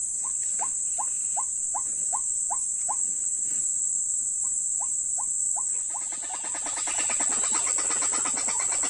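White-breasted waterhen calls, the kind of recording played as a lure to trap waterhens. A run of short rising notes comes about three a second, pauses, and comes again. From about six seconds a dense chorus of many overlapping calls sets in. A steady high-pitched buzz runs underneath.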